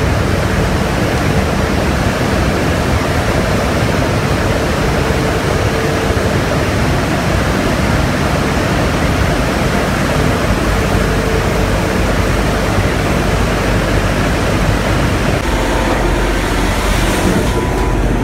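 Running flour-mill machinery: a loud, steady noise from fans, air ducting and milling machines, with a low hum and a steady tone under it. About three-quarters of the way through the mix shifts: the low hum grows and a higher steady tone comes in.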